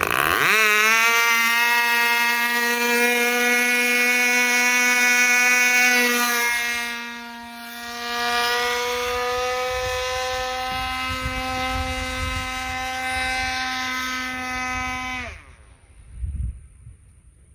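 Torpedo 19 two-stroke glow engine on a free-flight model airplane running flat out, a steady high-pitched buzz rich in overtones. It dips briefly about seven seconds in and stops abruptly about fifteen seconds in as the engine run ends.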